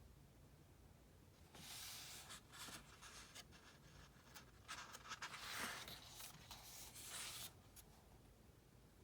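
Faint paper rustling from a book being handled and its pages turned, lasting about six seconds with several sharper crinkles in the middle.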